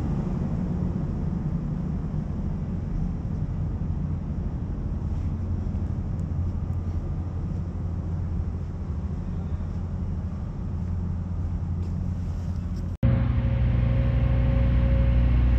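Steady low rumble of site machinery running. About 13 s in it breaks off sharply and gives way to a louder, steadier machine hum with a thin high whine.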